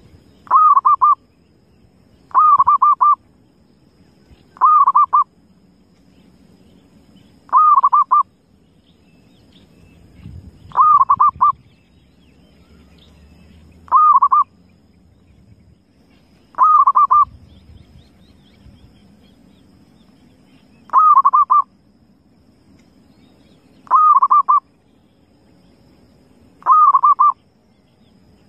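Zebra dove (perkutut) cooing: a short, rapidly pulsed coo phrase repeated ten times, roughly every two to three seconds, with one longer pause about two thirds of the way through.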